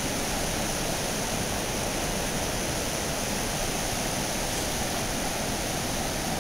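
The Merced River's whitewater rapids rushing, a steady, even noise with no breaks.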